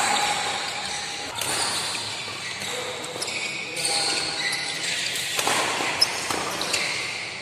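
Badminton doubles rally in a reverberant hall: sharp racket strikes on the shuttlecock, the loudest about six seconds in, with shoes squeaking on the court floor and voices chattering in the background.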